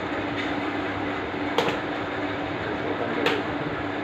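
Steady background machine hum with a constant low whine, broken twice by short sharp clicks about a second and a half apart as the plastic louvre grille of an air cooler is handled.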